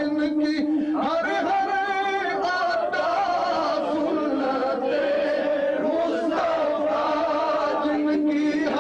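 Several men's voices chanting together in a sustained, melodic devotional chant, with long held notes.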